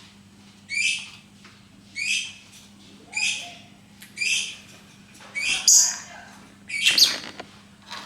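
Lovebird giving six short, harsh calls about once every second and a quarter, the last of them the loudest.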